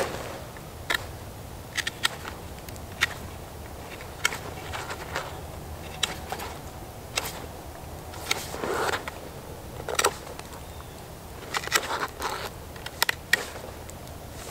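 Knife blade shaving wood from a stick: irregular short cuts and scrapes, about one a second, with a few longer strokes in the second half.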